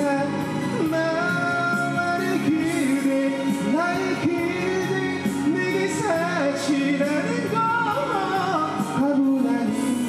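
A singer with instrumental accompaniment: held notes that slide smoothly from one pitch to the next.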